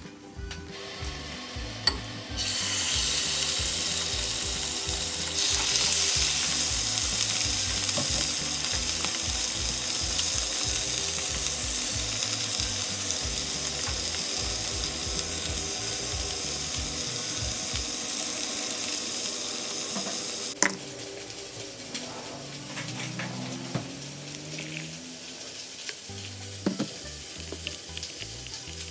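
Chicken breasts sizzling as they sear in hot oil in a frying pan, a steady hiss that starts about two seconds in and grows louder. About twenty seconds in it cuts off suddenly, leaving a few faint clinks of a metal spoon stirring stock in a plastic jug, with soft background music underneath.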